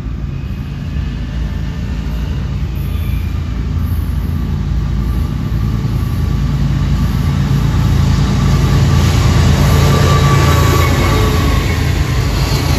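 Diesel locomotives of a Florida East Coast Railway freight train approaching and running by, a deep steady engine rumble growing steadily louder as the lead unit comes alongside near the end.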